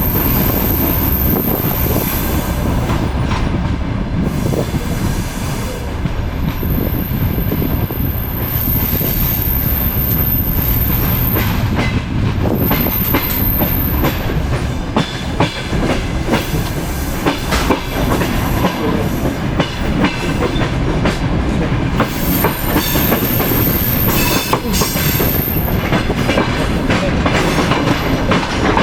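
Suburban passenger train rolling through the station as it arrives, its wheels clattering over rail joints with a steady rumble. A thin, very high squeal from the wheels or brakes comes and goes.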